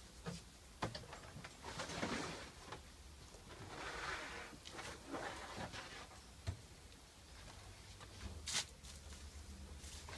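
Faint handling noises as bedding is changed in a plastic chicken coop: scattered sharp clicks and knocks of plastic parts, with scraping and rustling about two and four seconds in. The loudest knock comes near the end.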